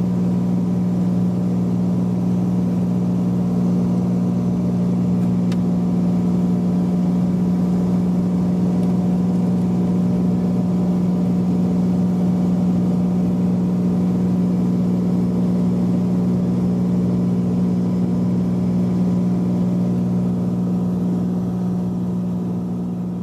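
Cessna 182's piston engine and propeller running steadily at power, a constant low drone with an unchanging pitch, fading slightly near the end.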